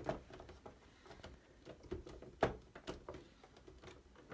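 Faint clicks and light knocks of plastic parts as the brew group of a Philips EP2220 coffee machine is handled through its side service door, with one sharper click about halfway through.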